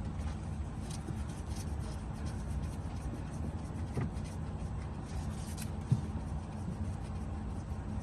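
Kenworth truck's diesel engine idling steadily, with a couple of light knocks near the middle.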